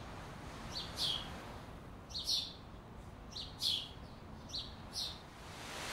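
A small bird chirping: short, quickly falling calls, mostly two notes at a time, repeated about every second and a half over a soft steady outdoor hiss. Near the end a broad rushing noise swells in.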